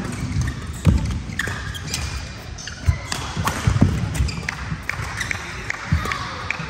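Badminton doubles rally: sharp racket-on-shuttlecock hits about a second apart, mixed with low thuds of players' feet on the court.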